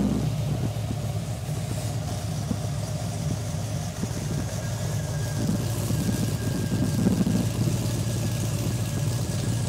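Holden VE Commodore SS-V's 6.0-litre V8 idling after a cold start, heard at the tailpipes of its aftermarket APC stainless steel exhaust. It comes down from the start-up flare just as it begins, then runs at a steady, deep idle with a small swell about seven seconds in.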